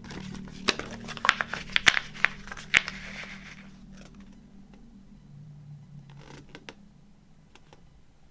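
Packaging of a movie box set being handled and opened: a quick run of sharp clicks and crinkles in the first few seconds, then a few fainter clicks.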